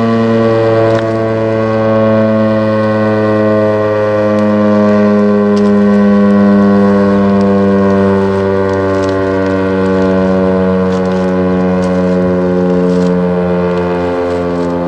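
Federal Signal STH-10 outdoor warning siren sounding during a test: a loud, sustained siren tone that slowly falls in pitch as it winds down.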